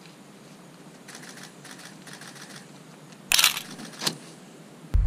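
Faint crackling and rustling of a newspaper burning, then two loud camera shutter clicks, the first about three seconds in and the second a little under a second later.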